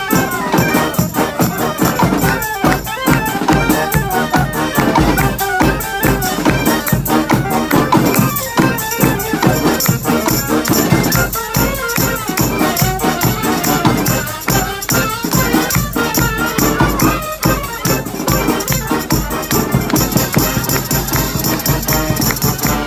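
Live marching band playing a tune at full volume, with horns over drums beating a steady rhythm and rattling hand percussion.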